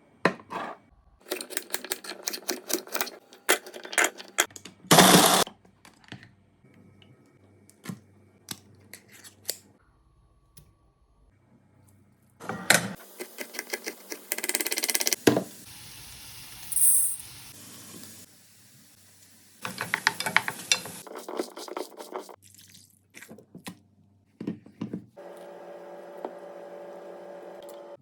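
Kitchen food-preparation sounds: fast runs of sharp clicks like a knife chopping on a board, clatters and handling noises, and a steady hum with a held tone near the end.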